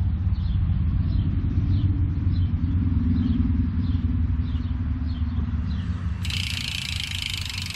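Steady low rumble of a running vehicle, with a faint falling chirp repeating about twice a second; about six seconds in, a hiss cuts in abruptly.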